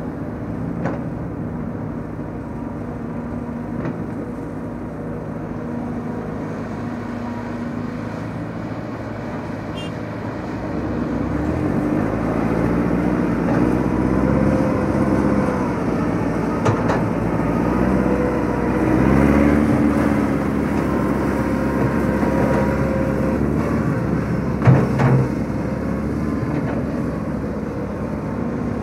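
Diesel engines of a Sumitomo hydraulic excavator digging and a small crawler dump truck running together. They get louder and rise and fall in pitch from about halfway through as the tracked dumper comes alongside, with a couple of sharp knocks near the end.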